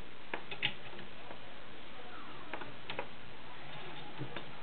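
A few separate light clicks and ticks from handling a vintage Pfaff 130 sewing machine as the stitched fabric is drawn out from under the presser foot.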